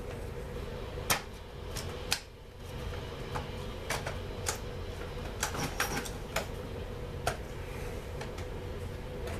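Parts of a Stihl MS 250 chainsaw clicking and knocking as they are handled and fitted by hand: about a dozen sharp, irregular clicks over a steady hum.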